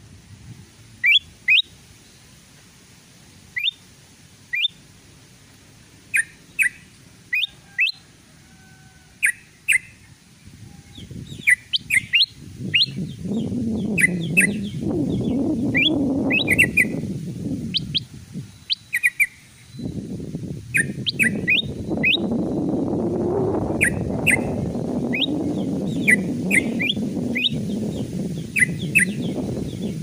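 A bird-lure recording of bulbuls calling: yellow-vented bulbul (trucukan) mixed with kutilang emas. It is made up of short, sharp chirps given singly and in quick runs. From about twelve seconds in, a loud low rushing noise sits under the calls and drops out briefly a little past halfway.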